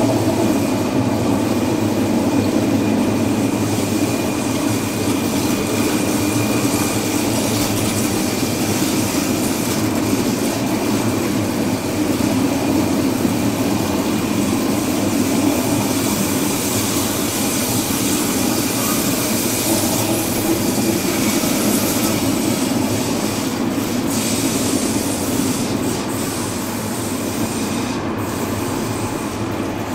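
Very long metre-gauge train of coupled Rhaetian Railway Capricorn electric multiple units rolling steadily past: continuous wheel and rail noise with a faint, steady high squeal from the wheels.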